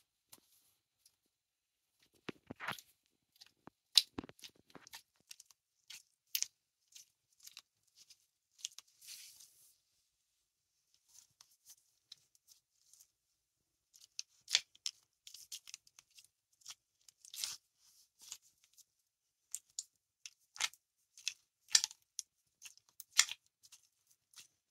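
Sticky glitter slime being squeezed and pulled apart between bare toes: irregular short, wet clicks and pops as it sticks and releases, with a few seconds' lull midway.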